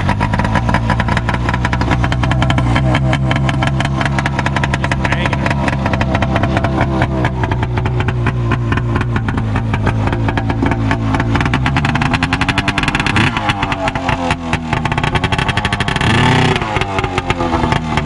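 1996 Arctic Cat Jag 440 fan-cooled two-stroke twin running with its silencer box removed, so it exhausts through the bare tuned pipe. It runs steadily, and the throttle is blipped twice, briefly raising and dropping the engine speed, near the end.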